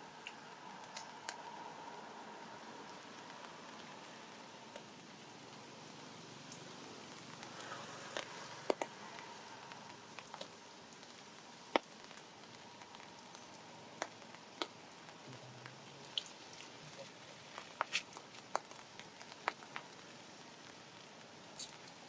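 Faint steady background hiss with scattered sharp clicks and ticks at irregular intervals, a few of them louder, several close together near the end.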